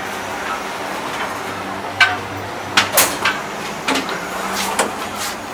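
Steady low hum inside a passenger train coach, broken by about half a dozen sharp clicks and knocks, the loudest about two seconds in.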